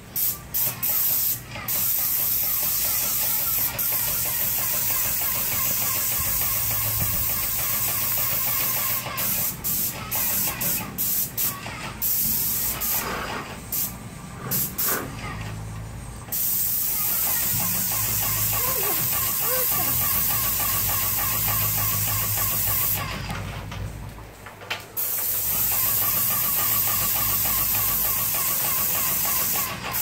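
Airless paint sprayer spraying through a gun on an extension pole: a steady hiss with a fast, even pulse and a low hum under it. The hiss breaks off and resumes several times, mostly about a third of the way in and again for a couple of seconds past the middle, as the trigger is let go and pulled again.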